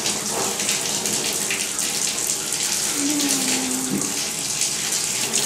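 Running water from a tub sprayer pouring over a dog in a stainless steel bathing tub, a steady hiss. About three seconds in, a short low steady tone sounds for about a second.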